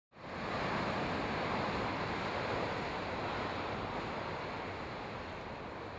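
Ocean surf washing steadily on the shore below, with wind on the microphone.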